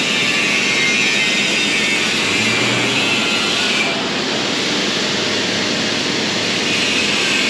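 Steady, loud rushing machine noise that dips slightly about four seconds in.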